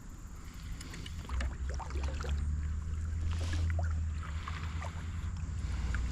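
Creek water sloshing around legs as someone wades, with a low rumble and many small scattered ticks, like light drizzle pattering.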